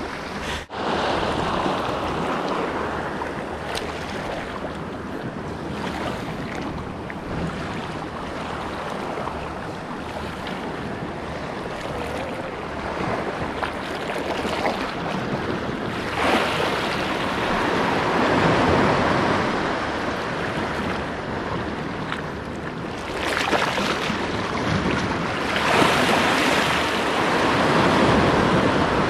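Sea waves washing and breaking against shoreline rocks, the surge swelling louder twice in the second half, with wind buffeting the microphone.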